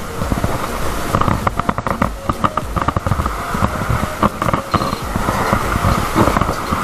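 Open cooking fire crackling with many rapid sharp pops, over a low steady rumble.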